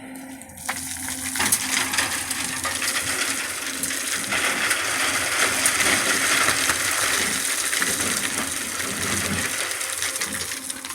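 Excavator running with a steady engine hum under a loud crackling, rattling clatter that starts about a second in and keeps up throughout.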